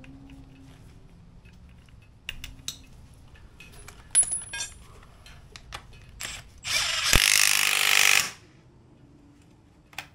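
A ratchet wrench tightening bolts on reassembled suspension parts: a few metal clicks and clinks of tools, then about a second and a half of rapid, loud ratcheting.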